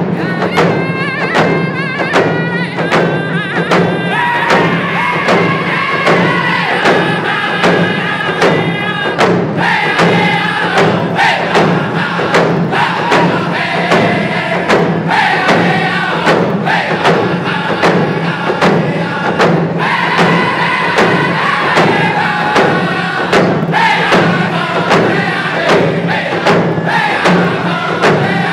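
A group of men singing in unison while beating hide hand drums with sticks at a steady beat of about two strokes a second. Their high-pitched melody repeatedly steps downward across each phrase.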